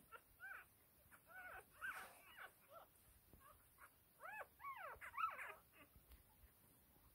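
Whippet puppies squeaking and whimpering as they tussle: many short, high-pitched squeals and whines, coming thickest about two-thirds of the way through.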